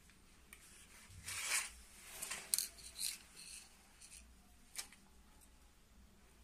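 Scissors snipping into thin PVC sticker film with crisp cuts and rustling, several in quick succession during the first few seconds, then a single short click later.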